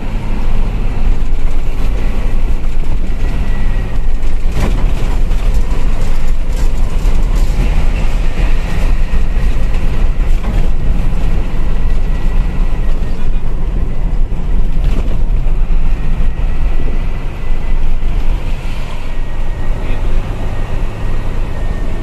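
Mitsubishi Fuso Fighter dump truck's diesel engine running steadily as the truck drives at road speed, heard from inside the cab with road noise. A single sharp knock comes about four and a half seconds in.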